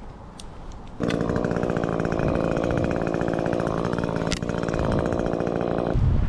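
Chainsaw running at a steady speed, starting abruptly about a second in and cutting off just before the end.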